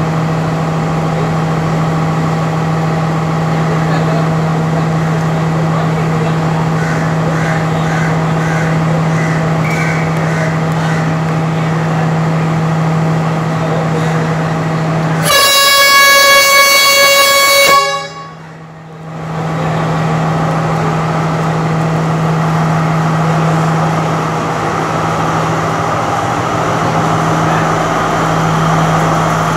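Sri Lanka Railways Class S12 diesel multiple unit idling with a steady low hum, then sounding its horn in one loud blast of about two and a half seconds about halfway through. The engine sound grows slightly louder near the end as the train starts to pull out.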